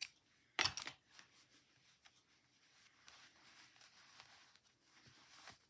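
Close handling of knitting and yarn: a short, crisp sound about half a second in, then faint rustling and small clicks.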